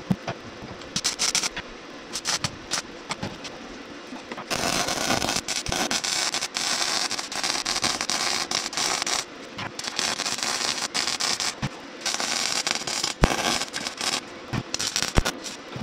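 Electric arc welding on a rusty steel fuel tank, a loud spitting crackle. A few sharp clicks come first, then welding starts about four and a half seconds in and runs in several stretches of a few seconds with short breaks between them.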